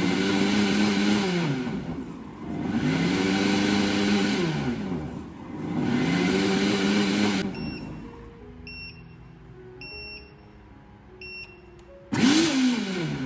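Tefal Perfectmix Cook BL83SD66 blender's 1400 W motor pulsing with water in the jar. It makes three surges about two and a half seconds apart, each spinning up, holding and winding down. Then a few short beeps sound from the control panel, and the motor starts another pulse about a second before the end.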